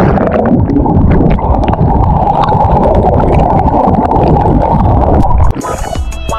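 Sea water heard underwater through an action camera's waterproof housing: a loud, muffled rushing and bubbling with many sharp clicks as the swimmer moves. About five and a half seconds in, the sound drops off suddenly as the camera breaks the surface, and music comes in.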